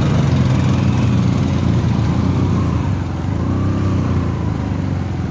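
Motorcycle engine running while riding, its pitch rising and falling about three to four seconds in.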